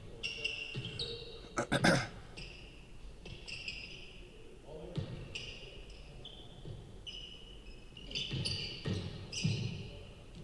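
Basketball dribbling and bouncing on a gym floor, with a loud sharp bounce about two seconds in. Sneakers squeak in short high squeals throughout.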